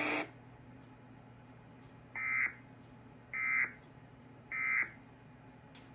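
Three short buzzy data bursts of an Emergency Alert System digital header, evenly spaced about a second apart, each lasting under half a second. Coming right after the spoken tornado warning, they are the end-of-message code that closes the alert.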